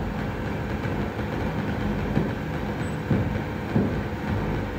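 Dense, rumbling electronic noise from a home-built light-responsive oscillator synthesiser: a steady low drone with a few held low tones, broken by a few irregular low thumps.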